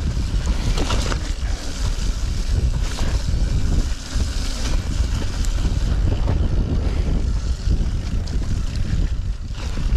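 Wind buffeting the camera microphone of a mountain bike riding down rough grassy singletrack, a heavy steady rumble, with the tyres and bike frame rattling and clicking over bumps now and then.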